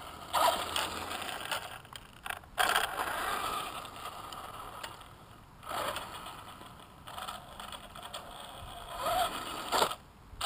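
Electric Traxxas Stampede 4x4 RC monster truck driven in short bursts of throttle, its motor and gears whining and its tyres scrubbing on concrete, about five surges in all. Near the end one surge rises in pitch as the motor speeds up.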